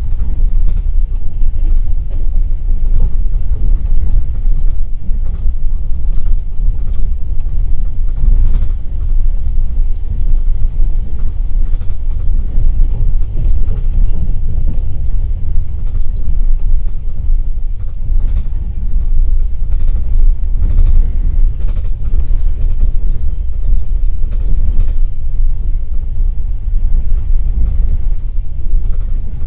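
Passenger train running at speed, heard from inside a platzkart sleeping car by its window: a steady, loud low rumble of wheels on track, with occasional faint clicks.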